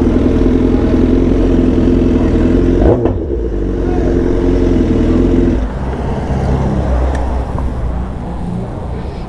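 BMW S1000XR's inline-four engine with a full exhaust system running at a steady note while under way, with a brief break about three seconds in. A little past halfway the steady note drops away, leaving a lower, rougher engine sound.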